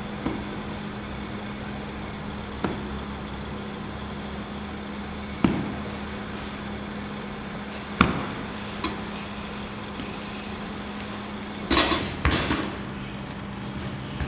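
Separate sharp knocks from bread-making work, one every two to three seconds and a quick cluster of several near the end, over a steady low hum.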